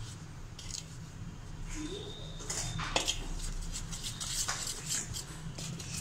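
A metal spoon stirring corn flour and spices in a stainless steel bowl: scraping and light clinks of spoon against steel. The clinks are sparse at first and more frequent from about halfway through.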